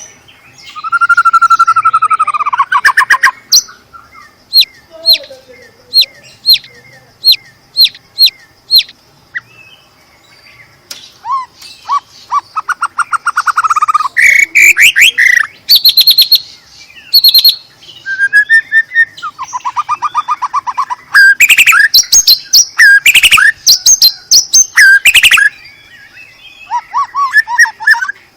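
White-rumped shama (murai batu) singing a loud, varied song. It opens with a slurred whistled phrase, then gives a run of sharp, evenly spaced notes about twice a second, then fast trills and quick rising notes. The densest, loudest stretch comes past the middle.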